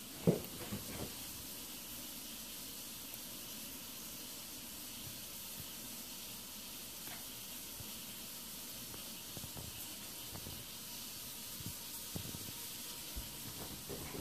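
Steady hiss of a quiet room. About a quarter second in comes a brief, sharp, pitched sound, the loudest thing here, and a few soft thumps near the end.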